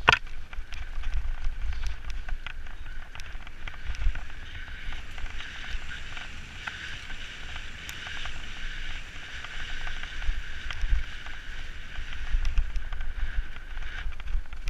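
Mountain bike rolling fast down a dirt trail: wind buffeting the microphone, with small knocks and rattles from the bike over the ground and a sharp knock right at the start. A steady high whir comes in about five seconds in and fades near the end.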